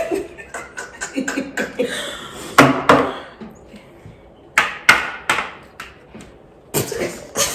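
A series of sharp knocks and clicks a second or two apart, some ringing briefly, with soft voices between them.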